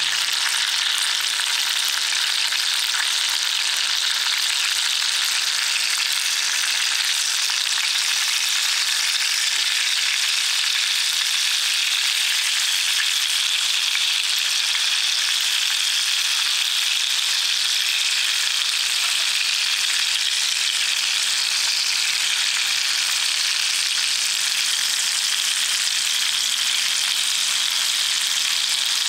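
Garlic, cherry tomatoes and broccoli frying in olive oil in a cast-iron skillet over charcoal: a steady, even sizzle.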